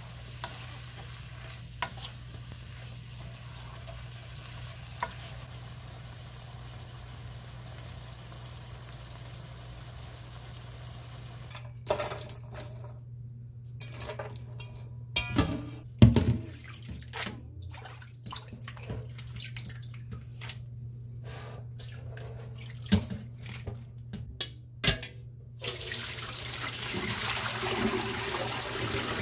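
Soybean sprouts being washed by hand in a stainless bowl of water in a sink: irregular splashing and sloshing with knocks against the bowl, one of them loud. Near the end, tap water runs steadily into a mesh strainer. A steady low hum lies under it all.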